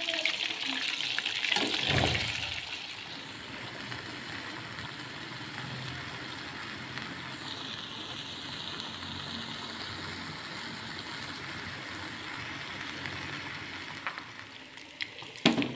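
Chicken pieces simmering in turmeric spice broth in an aluminium wok, a steady bubbling sizzle. A louder hiss in the first two seconds or so, which then settles to an even level.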